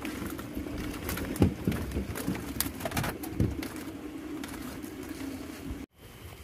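Scattered knocks and thumps of freshly harvested tilapia and plastic baskets being handled, over a steady low drone. The sound cuts off abruptly near the end.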